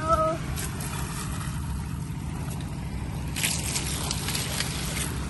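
An engine running steadily with a low, even throb. From about three and a half seconds in, water splashes and sloshes for a second and a half.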